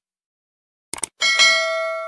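Subscribe-button sound effect: a quick double mouse click about a second in, then a bright bell ding that rings on and slowly fades.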